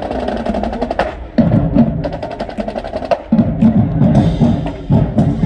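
University marching band drumline playing a marching cadence: a fast run of sharp stick or rim clicks in the first second, then heavier drum beats in repeated pulses.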